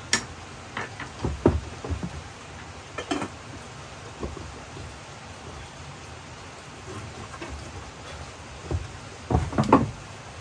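Scattered wooden knocks and taps on a plank table and board floor: chopsticks set down near the start, a few footsteps, then a wooden cutting board laid on the table with a cluster of knocks near the end. A steady hiss underneath.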